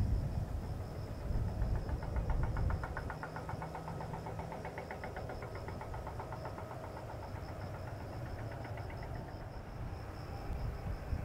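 Distant Boeing 737-800's CFM56 jet engines idling with a low rumble, loudest in the first few seconds, as the airliner turns onto the runway. A steady, high, pulsing insect trill comes from the grass throughout.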